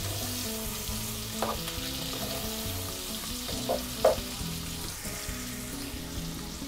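Diced bacon, green pepper, onion and garlic sizzling in hot fat in a nonstick pot while being stirred with a plastic utensil, with a few soft knocks of the utensil against the pot. The sofrito is frying until the garlic turns lightly golden.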